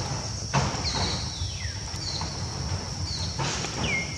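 Outdoor ambience: a steady high-pitched insect buzz, with several short falling chirps and a constant low rumble of wind on the microphone. A brief noisy rush comes about half a second in and again near the end.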